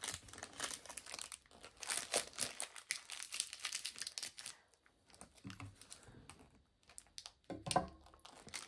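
Rubbish crinkling and crumpling as it is gathered up by hand: dense crackling for about four and a half seconds, then quieter handling with a few light clicks and a brief louder rustle near the end.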